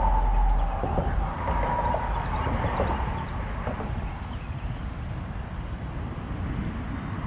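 Steady low outdoor rumble with a distant horn held on one steady note for about the first three seconds, and faint small chirps of birds or insects.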